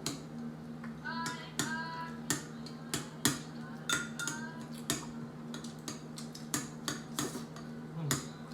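Cutlery and dishes clinking and tapping irregularly during a meal: a dozen or so sharp clinks over a steady low hum.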